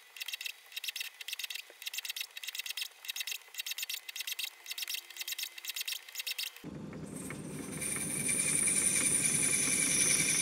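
Fast run of light metallic clicks and rattles from a Myford ML7 lathe whose chuck is turned by hand while an M4 tap is fed into a brass piston. About two-thirds of the way in the lathe motor starts and runs up to speed, then runs steadily with a high whine.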